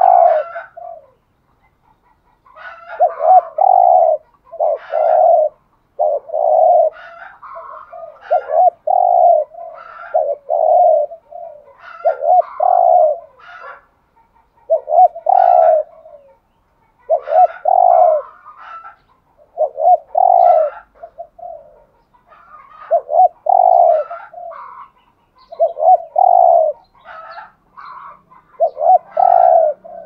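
Spotted dove cooing over and over: a long run of low, repeated coo phrases, about one every one to two seconds with short gaps, the 'gù' cooing of a decoy dove kept to call in wild doves.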